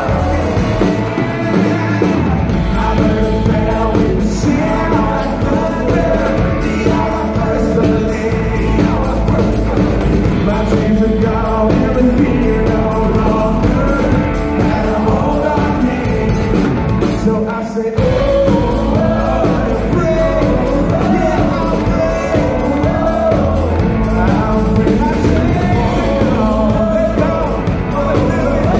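Live performance of a man singing a song while strumming an acoustic guitar, with a short break in the sound about two-thirds of the way through.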